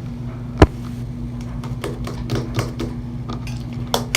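Slime being cut and handled: one sharp knock about half a second in, then softer clicks and taps, over a steady low hum.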